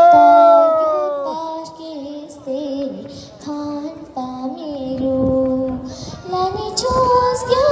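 A high solo voice singing a melody, opening on a loud long note that slides slowly down, then shorter phrases of held notes.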